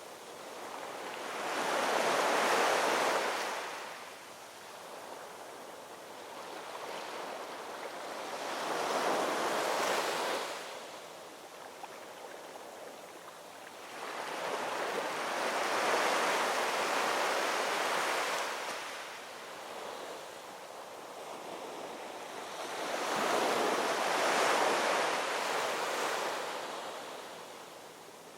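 Ocean waves breaking and washing on a shore, rising and falling in four slow surges several seconds apart.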